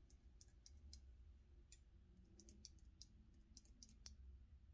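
Faint, irregular small clicks of a First Strike FSC's trigger mechanism parts being worked back and forth to spread freshly applied lube.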